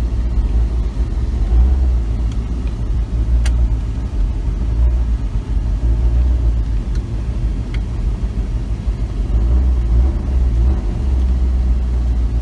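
Steady low rumble of a vehicle heard from inside the cab while driving slowly: engine and road noise.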